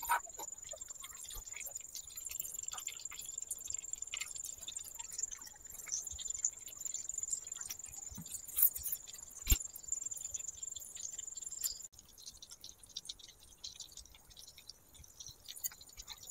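Hot oil crackling and popping around two pieces of battered chicken deep-frying in a miniature clay kadai, with one sharp knock about nine and a half seconds in. The crackle turns quieter and sparser after about twelve seconds.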